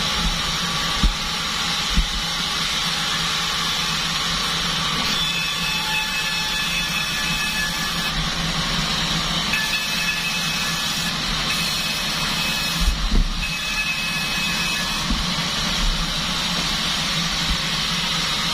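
Band sawmill running steadily, a continuous machine noise with a low hum and faint high whines that come and go. A few short low thumps sound about a second in, at two seconds, and again about two-thirds of the way through.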